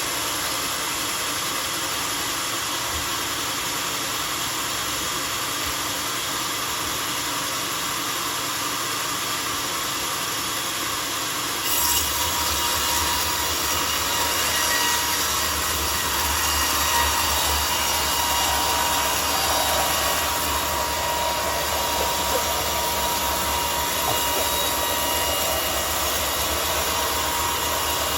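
Homemade sawmill running with a steady mechanical whir. About twelve seconds in it turns abruptly louder, with a low hum and a steady high tone added, and holds that way.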